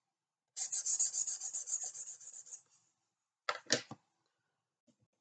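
Marker pen scribbling on paper in rapid back-and-forth shading strokes for about two seconds, followed by two short scratches near the end.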